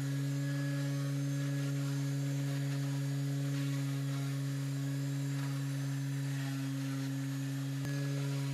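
Flexible-shaft rotary tool driven by a small bench-grinder motor, humming at one steady speed as its bit carves a small wooden piece. A brief tick comes near the end.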